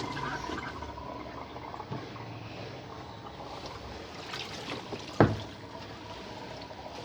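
Water running and sloshing in a Sharp twin-tub washing machine, with one sharp click about five seconds in.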